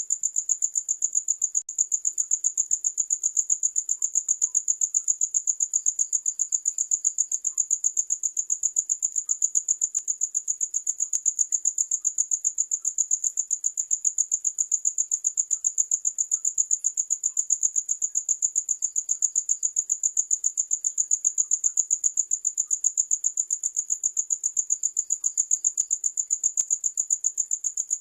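Cricket chirping: a high-pitched, rapid, evenly pulsed trill that keeps going without a break.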